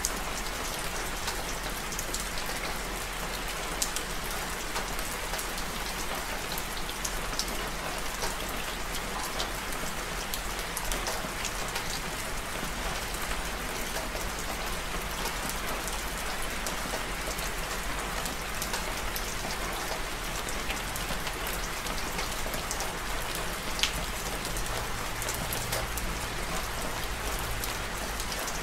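Steady rain falling: an even hiss with scattered sharper ticks of individual drops, a couple of them louder.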